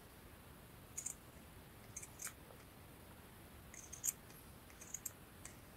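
Scissors snipping a small scrap of fabric into shape: several faint, short snips about a second apart.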